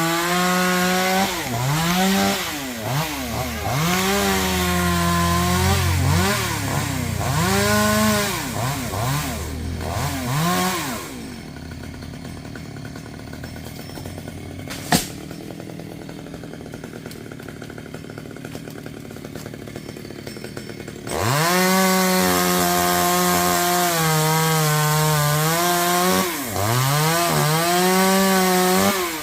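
Two-stroke chainsaw running at high revs, its pitch dipping and climbing back again and again as the throttle is eased and squeezed. About eleven seconds in it drops to a much quieter low idle, with a single sharp click a few seconds later. About ten seconds after that it revs up high again and runs until the end.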